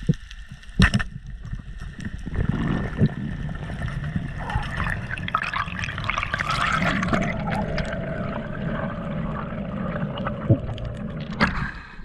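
Water rushing and bubbling around an underwater action camera as a freediver swims, with a few sharp knocks on the housing.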